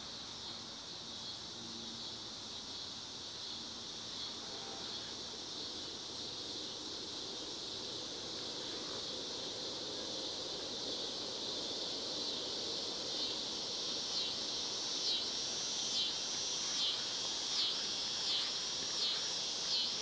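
Insects calling: a steady, high-pitched buzzing chorus, joined about two-thirds of the way in by a louder pulsing call of about three pulses every two seconds that grows stronger toward the end.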